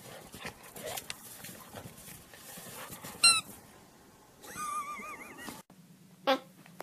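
A golden retriever playing with a toy ball in snow, with rustling and crunching underneath. A short, high squeak comes about three seconds in, and a wavering squeak lasts about a second just after the middle. A brief small sound comes near the end.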